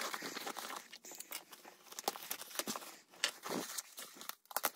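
Thin foam packing wrap and tape being pulled off a new handbag: irregular crinkling and rustling with scattered sharp crackles, a brief lull about three seconds in, then a few sharp snaps near the end.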